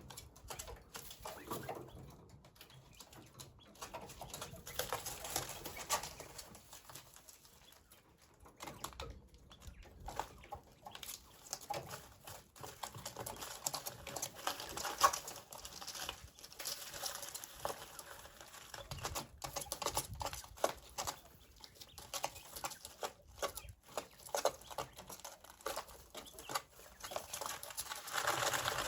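Coturnix quail moving about, pecking and scratching: irregular small taps and rustling, with one sharper tap about halfway through.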